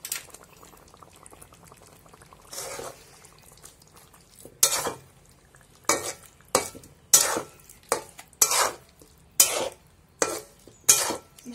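Flat metal spatula scraping and stirring chicken curry in a metal kadai, mixing in onion paste. It is soft at first, then a run of about ten short scrapes against the pan, roughly one every half second, from about four and a half seconds in.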